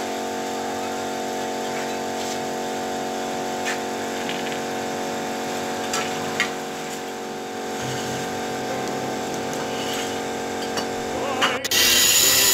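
A power tool's motor running steadily, with a few light taps. Near the end it gives way suddenly to a louder, harsh noise.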